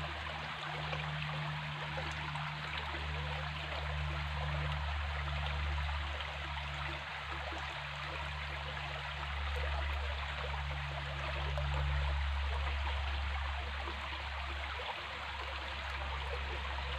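Shallow rocky stream flowing steadily, water trickling and splashing over stones, with a steady low rumble underneath.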